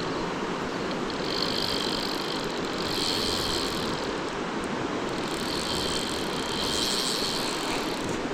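River water rushing steadily, with a high buzzing that comes and goes four times, each spell lasting about a second.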